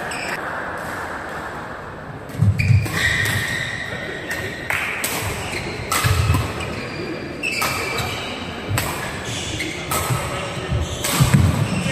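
Badminton rally in an echoing hall: sharp racket hits on the shuttlecock roughly every second or so, shoes squeaking on the court and thudding footfalls.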